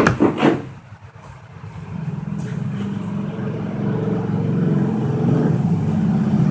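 A steady low motor hum that sets in about two seconds in and slowly grows louder.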